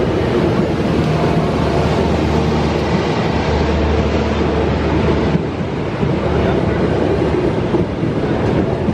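Passenger train coaches passing close by: a loud, steady rumble of steel wheels on the rails. A low hum under it drops away about five and a half seconds in.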